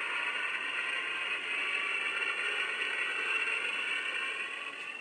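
A Star Trek sound effect played through the small built-in speaker of a Diamond Select Enterprise toy ship: a steady, hissy hum that fades away just after the end.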